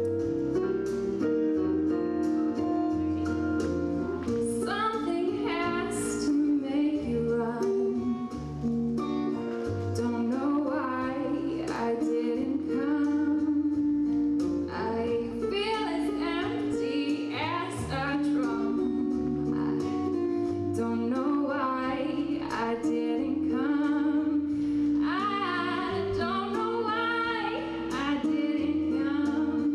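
A woman singing a solo song into a microphone over instrumental accompaniment, with sung phrases and held notes over steady chords.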